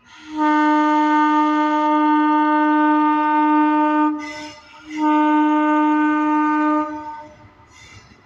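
WAG-9 electric locomotive's air horn sounding two long, loud blasts on one steady pitch: the first lasts about four seconds, and the second, after a short gap, about two.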